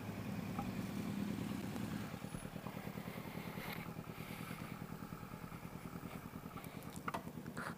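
Motorcycle engine idling, with an even low pulse that settles in about two seconds in.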